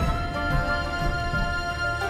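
Background music with held notes over a steady low pulse.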